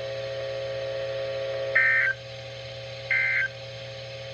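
NOAA Weather Radio sending the EAS end-of-message code: two short bursts of SAME digital data tones about 1.3 s apart, starting a little under two seconds in. Before them a steady hum runs on the broadcast channel and stops as the first burst begins.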